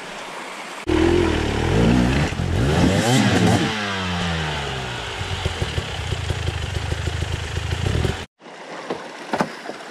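Enduro motorcycle engine revving, its pitch rising and falling with the throttle as the bike climbs a rocky creek bed. The sound cuts off suddenly near the end.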